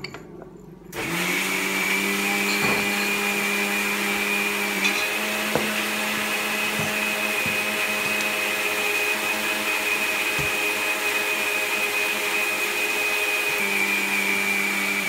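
Kitchen mixer grinder running steadily, grinding green coconut-and-coriander chutney. It starts up about a second in.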